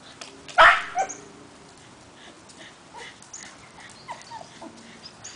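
Finnish Lapphund puppies at play: one loud, sharp yelp about half a second in, then a few short, high, faint yips and whimpers.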